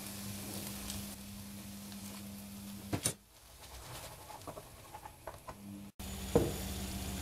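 Risotto rice sizzling faintly in a nonstick pan as it is stirred with a wooden spoon, with a few soft taps of the spoon. A steady low hum underneath cuts out for about three seconds in the middle.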